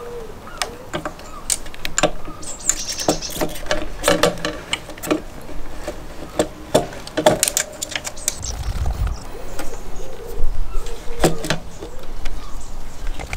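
Clicks and knocks of an AGM battery being pushed into a Honda CB750's battery box and its terminal screw done up with a screwdriver, with birds chirping in the background.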